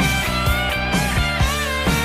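Rock music, an instrumental passage: a guitar line with bending notes over a steady drum beat and bass.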